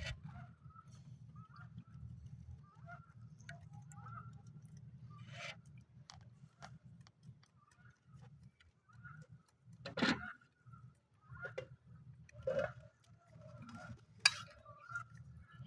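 Rural yard sounds: scattered short bird chirps and farm-animal calls, with louder calls about ten and twelve and a half seconds in, over a low steady hum. A single sharp click near the end is the loudest sound.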